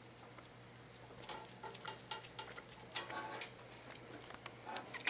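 Irregular light clicks and taps of tools and small metal parts being handled, starting about a second in and coming several a second for a few seconds.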